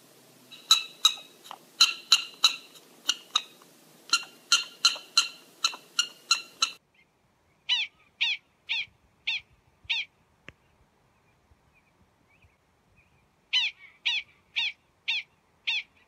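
Prairie dogs calling with a fast series of short, sharp chirping barks, about three a second. After a break, two runs of five chirps follow, each sliding down in pitch, about two a second, with a pause of a few seconds between the runs.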